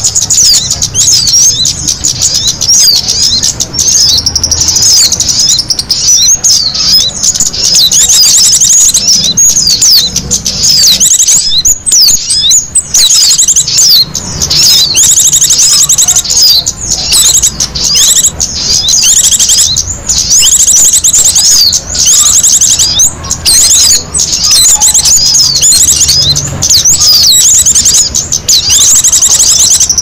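Dense chattering of many small songbirds, rapid high chirps overlapping without a break: a bird-lure recording of the kind hunters play to draw small birds in.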